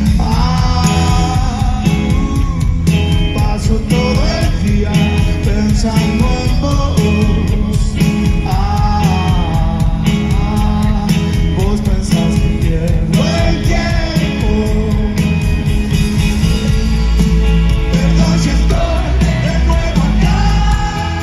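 Live rock band playing through a concert PA, heard from within the audience: a sung vocal melody over electric guitars, bass and drums.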